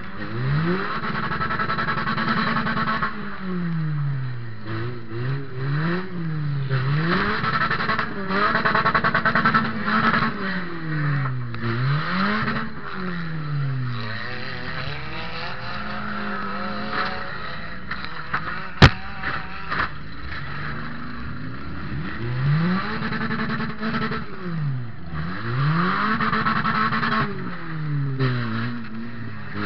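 Toyota Matrix's four-cylinder engine, heard from inside the gutted cabin, revs up and falls back over and over as the derby car drives back and forth, with rattles and knocks from the stripped body. One sharp crack comes a little past halfway.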